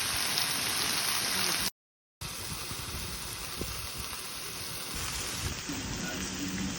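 Food sizzling on a hot camp pan or grill, a steady hiss, which cuts out to total silence for about half a second roughly two seconds in before the sizzling resumes.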